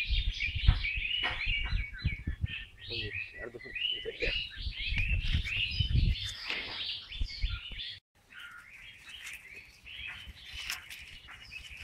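Many small birds chirping continuously in a dense chorus. For the first eight seconds low thumps and rumbling sound underneath. Then the sound drops out briefly, and the chirping goes on more quietly.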